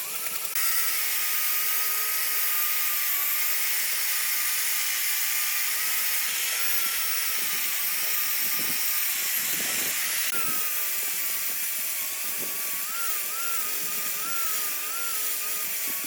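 A small electric power tool running steadily with a wavering whine. A harsher hiss joins about half a second in and drops away around ten seconds.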